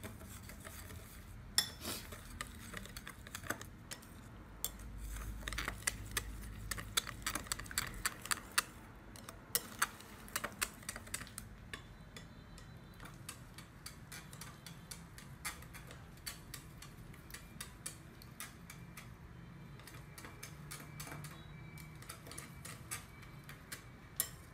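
Chopsticks stirring a sauce in a glass bowl, clicking and tapping against the glass many times, thickest in the first half and sparser later.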